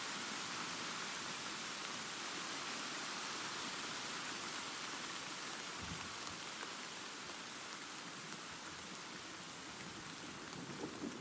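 Steady rain, an even hiss of many drops with no thunder in it. Near the end a low rumble of thunder begins to swell.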